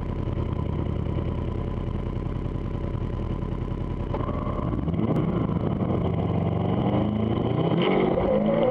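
Subaru hillclimb car's engine, heard from inside the cockpit, running steadily at rest. From about four seconds in it is revved up and held at varying revs, with the pitch rising and falling, as the stationary car waits on the start line.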